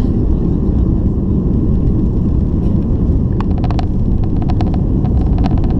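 Jet airliner's engines at takeoff power heard inside the cabin: a loud, steady low rumble, with a run of light clicks or rattles in the second half.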